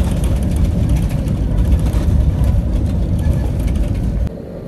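Airliner cabin noise on the landing roll: a loud, steady low rumble of jet engines and wheels on the runway. About four seconds in it cuts off abruptly to a quieter steady hum.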